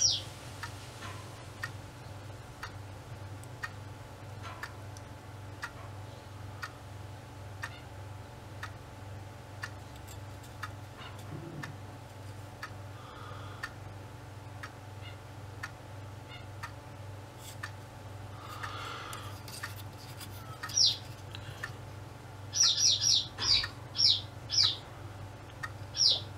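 A small bird chirping: short, high, downward-sliding chirps, one about three-quarters of the way in, then a quick run of several near the end, over a steady low hum and faint scattered clicks.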